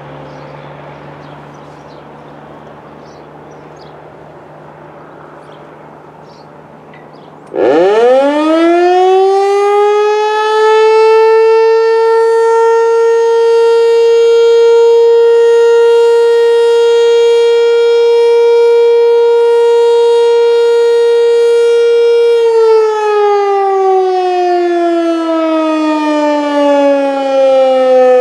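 American Signal T-121 outdoor warning siren sounding its noon test: after about seven seconds of low steady background hum it starts suddenly and winds up quickly to one steady tone, holds it for about twelve seconds, then begins winding down with the pitch falling.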